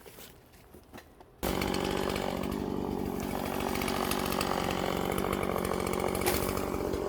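Chainsaw running at high speed, cutting through a tree blown down across the trail. It starts abruptly about a second and a half in, holds a steady pitch and stops abruptly near the end.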